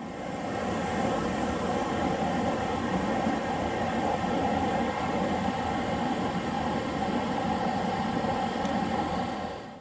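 Mountain stream rushing steadily over small cascades and rocks.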